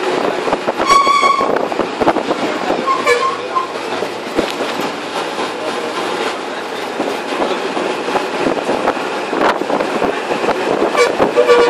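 Bus driving with steady engine and road rattle, cut by a few short high-pitched squeals from the tyres, about a second in, around three seconds in and again near the end.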